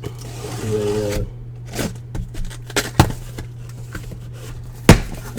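Cardboard case of trading-card boxes being handled and opened: scraping, then three sharp knocks, the loudest near the end, over a steady low hum.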